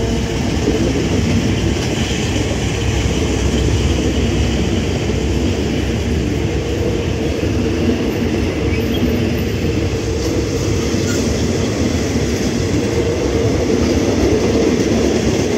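Thai State Railway passenger coaches of a commuter train rolling past on the track, with the steady running noise of steel wheels on the rails.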